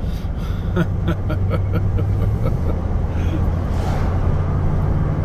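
Engine and road noise of a moving vehicle heard from inside the cab: a steady low drone, with a few light ticks in the first second or so and a brief hiss about four seconds in.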